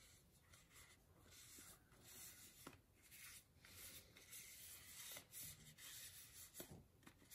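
Faint cloth wiping: a folded cotton t-shirt cloth rubbed over a damp fiddle leaf fig leaf in short, irregular strokes, each a soft, scratchy swish.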